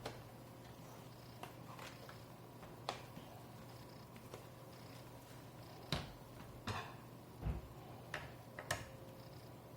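Scattered light clicks and taps from a screwdriver and small plastic laptop parts being handled during disassembly, about half a dozen spread through the second half, over a steady low hum.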